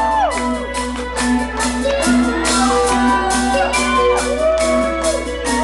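A gothic metal band playing an instrumental passage live, heard from the crowd. A cymbal beat strikes about twice a second under gliding, bending melody lines, over a steady low hum.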